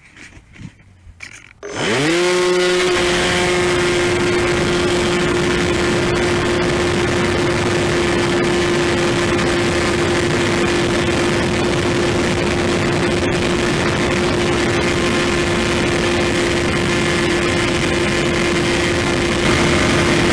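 Multiplex Easy Star's electric pusher motor and propeller, picked up by the onboard camera: after a few faint handling knocks the motor spins up about two seconds in to a steady high whine, with a rush of air noise under it as the glider flies.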